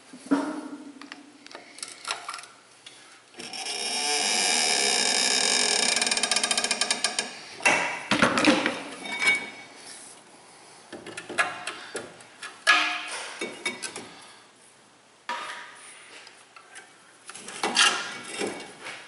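A power tool runs steadily for about four seconds, breaking into rapid pulses just before it stops. Sharp metal clanks and knocks follow as the front brake caliper is pried off the rotor and handled.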